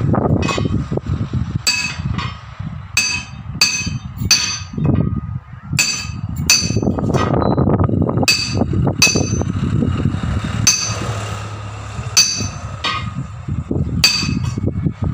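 A hammer striking a steel tyre lever wedged between a truck tyre's bead and its steel rim: about fifteen sharp, ringing metal blows at uneven intervals, working the bead off the rim to remove the tyre.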